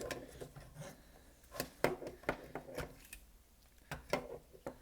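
Light, irregular clicks and taps of small plastic parts of an opened DualShock 4 controller being handled and fitted together.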